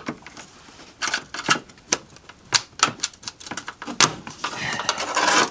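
Plastic door-sill scuff plate being pried up with a trim-panel removal tool: a run of irregular sharp clicks and snaps from the plastic and its retaining clips, with a rougher scraping stretch near the end.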